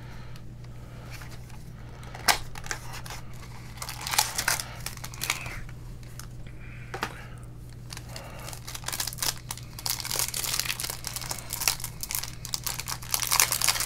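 Foil trading-card pack wrappers crinkling and tearing as packs are opened, in scattered crackles that grow busier in the last few seconds, over a low steady hum.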